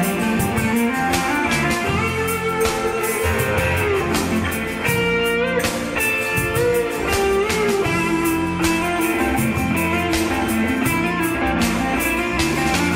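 Instrumental break of a rock song: a guitar melody with some sliding notes over bass and a steady drum beat, with no singing.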